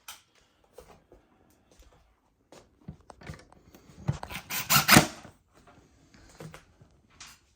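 Hands working on plastic refrigerator dispenser parts: scattered small clicks and taps, with a louder run of rattling clatter about four to five seconds in.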